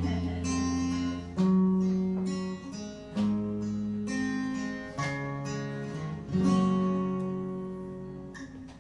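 Acoustic guitar strumming chords with no voice, a new chord struck every second or two, each one ringing out and fading before the next.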